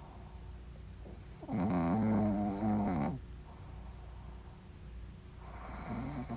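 Shih Tzu snoring in its sleep: one long, pitched snore of about a second and a half starting about a second and a half in, and the next snore beginning near the end.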